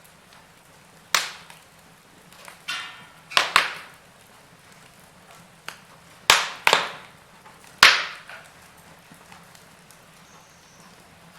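Wood fire in a fireplace crackling, with about seven sharp pops and snaps in the first eight seconds, each fading fast, then a quieter stretch.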